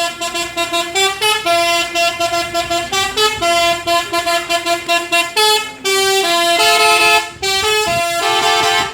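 Telolet bus horn, a multi-tone musical air horn, playing a fast tune of short toots that step between several notes, then cutting off abruptly near the end.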